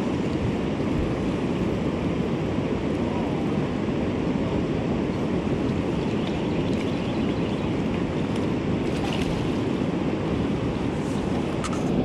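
Steady rushing of river water over rapids, mixed with wind on the microphone.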